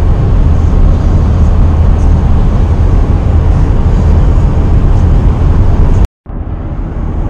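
Steady road and engine noise inside a minivan's cabin at highway speed: a deep rumble with a hiss of tyres and wind above it. About six seconds in it breaks off for an instant and comes back a little quieter.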